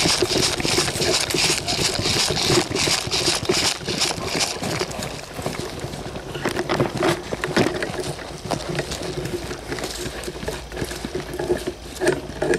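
Rustling and crunching of footsteps through dry leaf litter, with the burlap ghillie wrap on the rifle brushing close to the microphone; densest in the first few seconds, then more spaced out.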